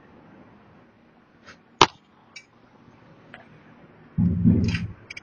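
Clicks and knocks of laser printer parts being handled. One sharp click comes just under two seconds in, with a few lighter ticks around it. About four seconds in there is a heavier knock or scrape lasting under a second.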